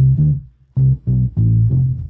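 Electric bass guitar on its own, an AI-separated stem, playing a rock riff of short plucked low notes with brief gaps between them and a short pause about half a second in.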